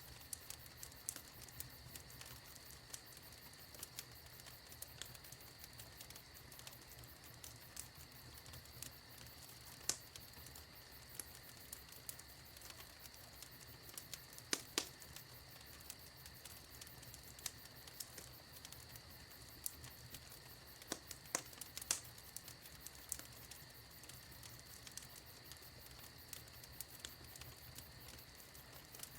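Wood fire in a fireplace crackling: irregular sharp pops and snaps over a soft steady hiss, with a few louder pops around the middle.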